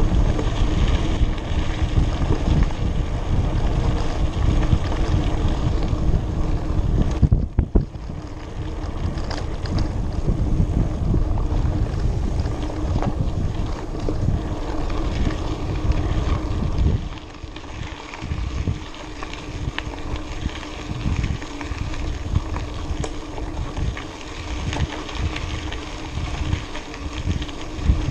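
Wind buffeting the microphone over the rumble of mountain bike tyres rolling on a dirt road, with rattles and knocks from the bike over bumps. The low rumble eases and turns patchy about seventeen seconds in.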